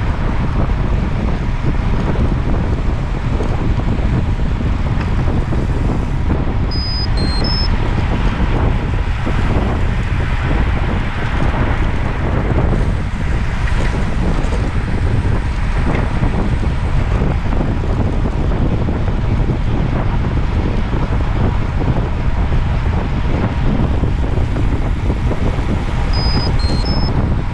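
Steady, heavy wind noise rumbling on the microphone. Short, high electronic beeps of a few different pitches come about seven seconds in and again near the end.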